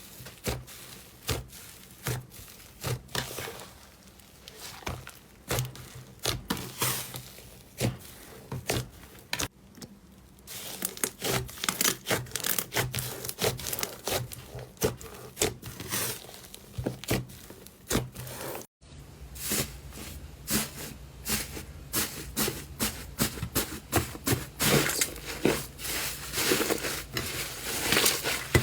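Slime being squeezed and poked by hand: irregular sticky clicks, pops and crackles. About two-thirds through there is a brief gap, after which the pops come thicker and louder.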